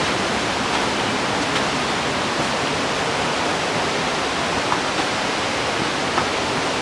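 Steady rush of a mountain creek's flowing water, an even hiss without pause, with a few faint clicks near the end.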